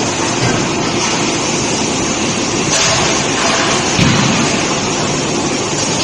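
Loud steady forge-shop noise with a single heavy thud about four seconds in: an electric screw forging press striking a red-hot shackle body in the die.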